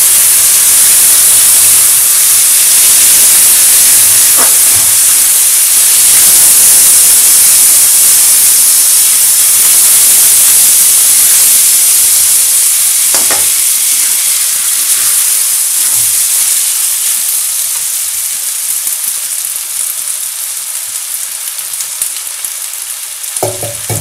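Washed basmati rice sizzling loudly in hot ghee in a metal kadai while it is stirred with a metal spatula, with a few scrapes of the spatula on the pan. The sizzle dies down gradually over the second half.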